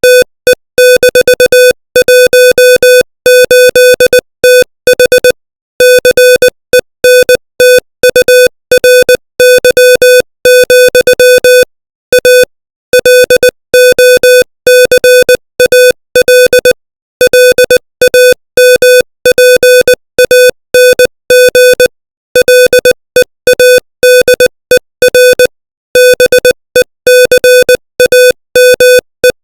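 Morse code at 20 words per minute: a single-pitch electronic beep keyed on and off in short and long elements, with longer pauses between words.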